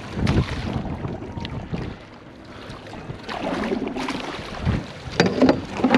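A Lahontan cutthroat trout thrashing in a landing net at the water's surface, splashing in bursts that are quieter in the middle and strongest near the end, with wind on the microphone.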